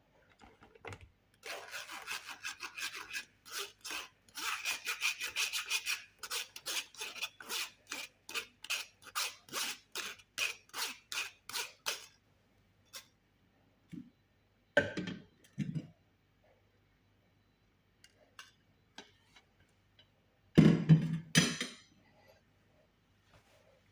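Rhythmic rasping strokes, about two a second, for roughly ten seconds, then stop. A few separate scrapes or knocks follow later.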